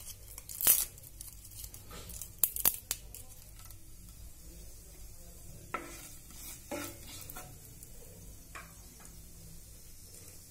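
Dried bay leaves snapped apart by hand and dropped into hot ghee, with sharp crisp clicks over the first few seconds. A spatula then stirs and scrapes in the nonstick frying pan over a faint, steady sizzle.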